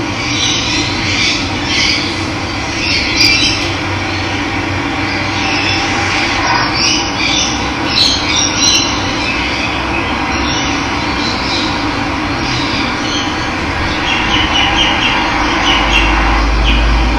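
Steady rush of running water with wild birds chirping over it in short, repeated calls. A low rumble comes in near the end.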